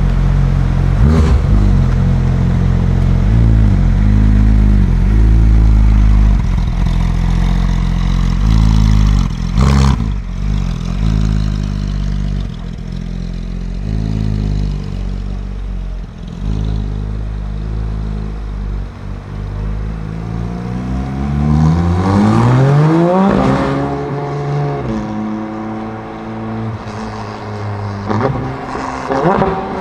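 Porsche 991.2 GT3 RS's 4.0-litre flat-six through an iPE straight-pipe exhaust, rumbling loudly at low revs with two sharp cracks, about a second in and about ten seconds in. About two-thirds through it revs up hard in a long rising pull as the car accelerates away, then rises once more near the end.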